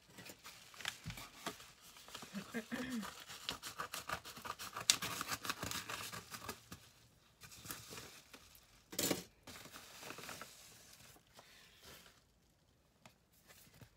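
A padded paper mailer being torn open and crinkled by hand: a dense run of irregular rustling and crackling, loudest about nine seconds in, then only faint handling noise.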